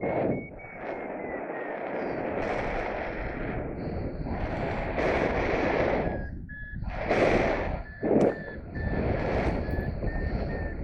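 Strong gusting wind buffeting the microphone in irregular loud blasts, with a paraglider variometer's thin electronic beeping underneath, its pitch drifting slowly up and down.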